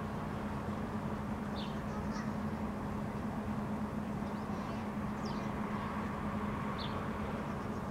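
Steady low hum of distant city traffic, with a few faint, short high chirps of small birds over it.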